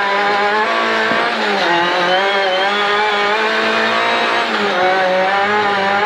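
Rally car's engine running hard at high revs, heard from inside the cockpit on a dirt track. The engine note drops briefly about a second and a half in and again near the end, then climbs back.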